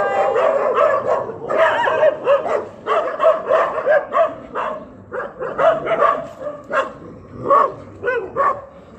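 Street dogs barking and yelping in a quick run of short, high calls, thinning out to scattered calls after about five seconds.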